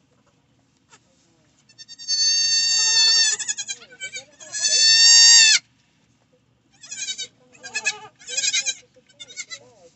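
Newborn Nigerian Dwarf goat kid bleating in high, quavering cries: a long one about two seconds in, a louder one just before halfway, then a string of short cries.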